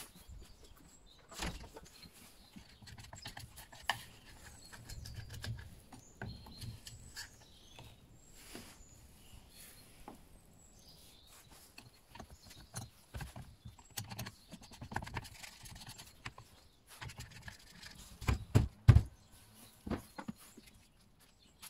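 Handling noises from cleaning a Stihl chainsaw by hand: scattered clicks, scrapes and light knocks as caked black grime is picked and scraped off the saw's housing and dropped onto cardboard, with a few louder thumps near the end.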